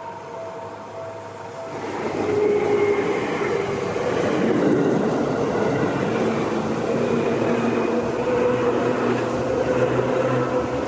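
Level-crossing bell ringing as a steady pulsing tone. About two seconds in it is drowned by a Seibu Railway electric train running through the crossing: loud, steady wheel-on-rail noise with a low motor hum.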